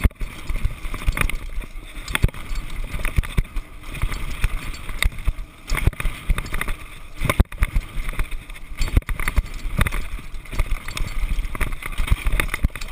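Mountain bike rolling fast over a rough gravel trail: continuous tyre noise on loose stones with irregular knocks and rattles as the bike jolts over the bumps.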